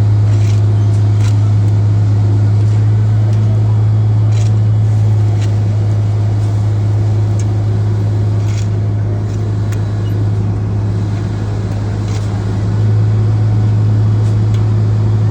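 Diesel engine of heavy road-paving machinery running steadily with a strong low hum, with a few light clicks and scrapes scattered over it.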